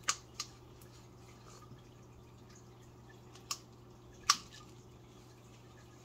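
A few short, sharp clicks and taps from handling plastic mixing cups and a wooden stir stick while pouring epoxy resin into silicone moulds. The loudest comes about four seconds in, over a faint steady hum.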